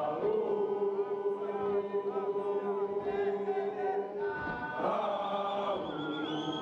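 Group of schoolboys singing a gwijo, an unaccompanied South African chant song, in harmony. Many voices hold one long chord, then move to a new, lower chord near the end.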